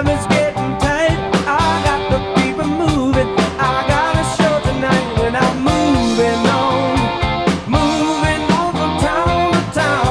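Rock song with guitar and a steady drum beat.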